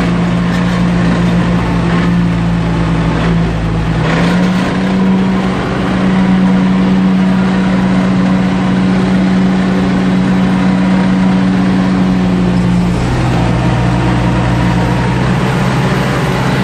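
Tractor engine running steadily, heard from inside the cab; its note rises slightly about four seconds in and drops back a few seconds before the end.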